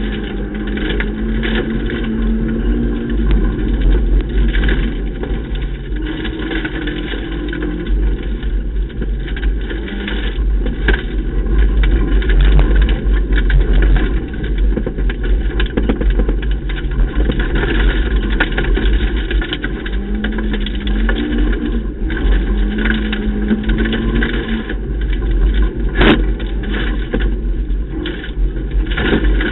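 Ford Ka rally car at speed on a stage, heard from inside the stripped cabin: the engine note rises and falls as the driver accelerates, lifts and changes gear, over a constant heavy road rumble. A single sharp knock comes near the end.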